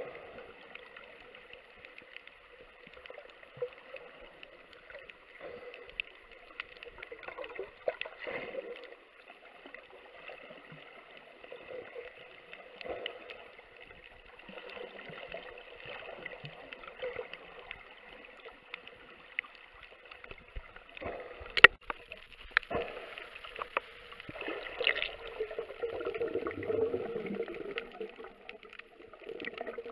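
Muffled underwater sound picked up through a camera's waterproof housing: a steady hiss with faint steady tones, scattered small clicks, a sharp click a little past the middle and a louder noisy stretch near the end.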